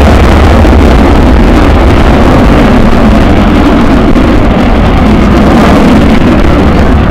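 Avro Vulcan XH558's four Olympus jet engines, very loud and steady, a heavy low-pitched jet noise from the bomber flying its display.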